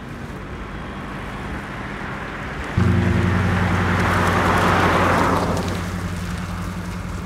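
A car passing by, its noise swelling and fading over a few seconds. A low steady drone comes in suddenly about three seconds in.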